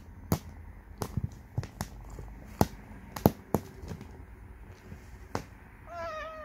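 Irregular sharp clicks and knocks, about a dozen, then near the end a kitten's single drawn-out high mew that bends down in pitch as it ends.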